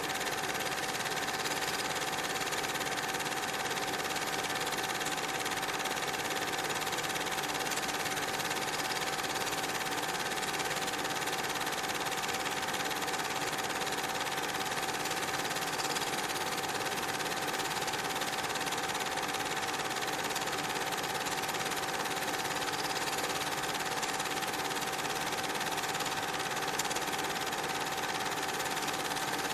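Steady mechanical whirr of a cine film projector running, with a constant hum held at one pitch and no change in level.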